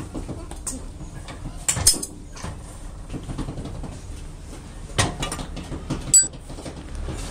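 Sharp knocks and clanks of metal and tools during sand-casting work: a double knock about two seconds in, another near five seconds, and a ringing metallic clank a second later, over a low steady hum.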